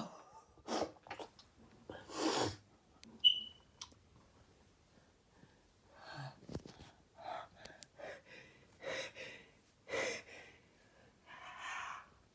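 A person's quiet sniffs, breaths and short gasps between sneezes, coming as a dozen or so brief puffs, with a short high squeak about three seconds in.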